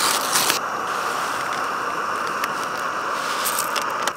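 Steady hiss of a canister backpacking stove burner. Over it, in the first half-second, the crackle of an oatmeal pouch being torn open.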